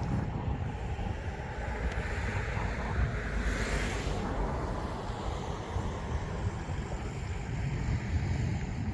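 High wind gusting and buffeting the microphone, with a low, rumbling roar throughout and a louder gust swelling and easing about three to four seconds in.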